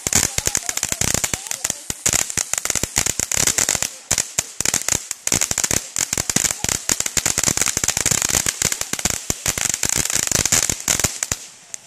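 Firehawk Go Bananas 200-gram firework fountain firing, with a steady hiss of spraying sparks under dense, rapid crackling. The crackling dies away shortly before the end.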